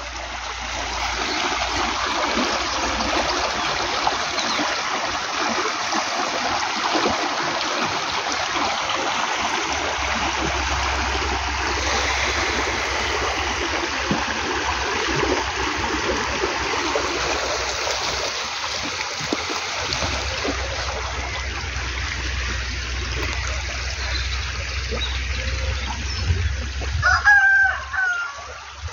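Steady rush of water running in a small irrigation ditch, with chickens in the background and a rooster crowing near the end. Wind rumbles on the microphone at times.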